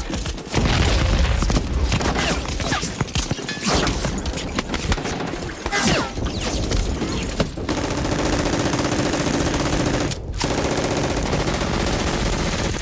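Film battle soundtrack of heavy machine-gun and rifle fire, with sharp cracks and bullets whizzing past in falling whistles. About two-thirds of the way through it changes to a steady, dense din, broken once by a short drop-out.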